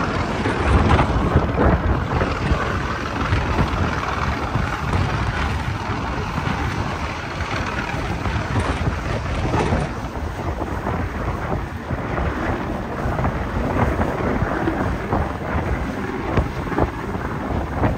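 Wind buffeting the microphone aboard a moving boat, a steady loud rumble over the rush of water from the boat's wake.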